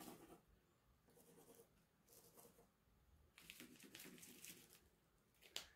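Faint scratching of a washable marker scribbling on a plastic zip-top bag, in short irregular strokes, with light crinkling of the plastic. A single light click near the end.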